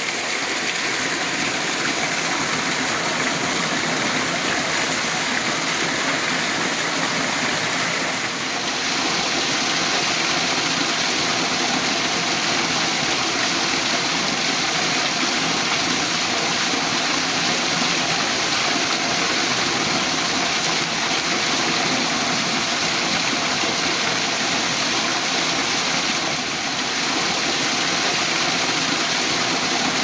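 Water pouring through a lake's drainage outlet, a steady waterfall-like rush.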